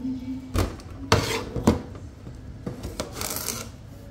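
Kitchen knife slicing a cucumber into long strips on a cutting board. There are several sharp knocks of the blade against the board and a rasping slice through the cucumber near the end.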